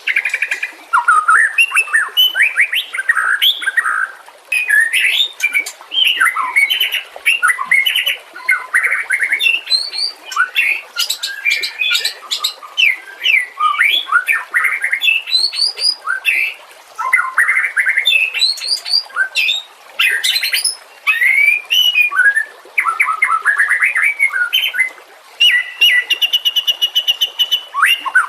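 White-rumped shama singing continuously: a fast, varied run of loud whistled phrases, sliding notes and rapid trills, with a held buzzing trill near the end.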